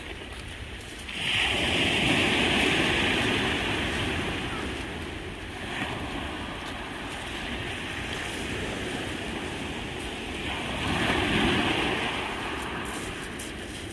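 Sea waves breaking and washing up a pebble beach, swelling and ebbing three times, about every five seconds.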